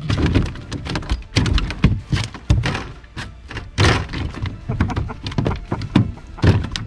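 A rapid, irregular series of hard knocks and thumps on the kayak, several in quick clusters.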